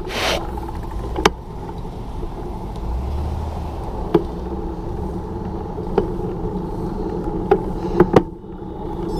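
A motor vehicle's engine running steadily, with a low swell about three seconds in. A few short sharp clicks are heard through it, two in quick succession near the end.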